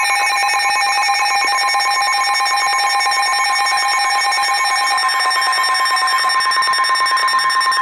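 Weather radio's alert tone: a loud, steady electronic tone held without a break, the alarm that signals an emergency warning broadcast is about to be read.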